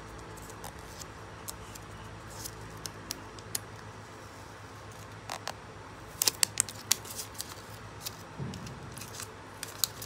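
Hands handling a white plastic power adapter and cardboard packaging, giving scattered light clicks and taps, with a quick run of sharp clicks about six seconds in and a soft thud a little later, over a steady low background hum.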